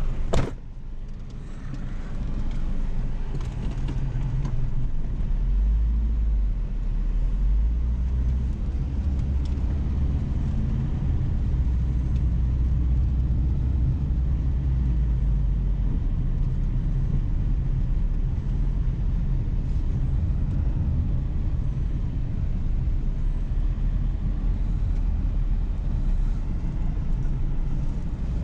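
A single sharp thump right at the start, then a car driving: a steady low engine and road rumble.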